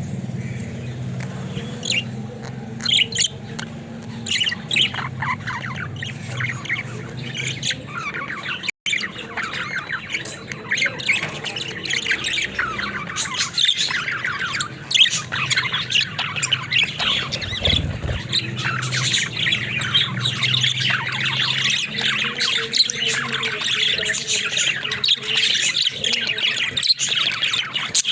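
Budgerigars chattering and warbling, a dense stream of fast chirps and squawks that grows busier over the second half, over a steady low hum that fades out about two-thirds of the way through.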